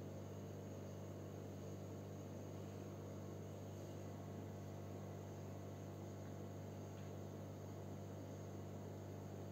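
A steady low hum with a faint even hiss, unchanging throughout; the spatula stirring in the pan makes no distinct sound.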